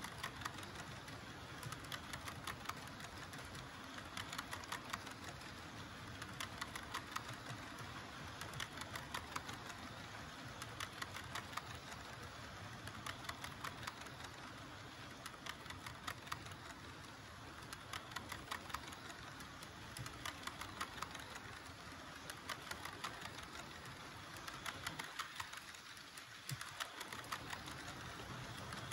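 HO scale model tank cars rolling past on the track. Their metal wheels click in quick clusters over the rail joints above a steady running hum.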